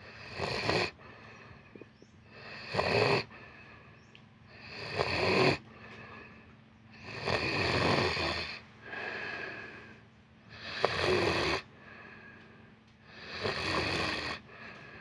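A person snoring in deep sleep, a noisy breath about every two to three seconds.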